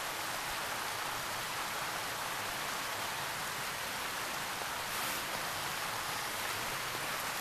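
Steady, even hiss of outdoor night background noise, with a brief faint tick about five seconds in.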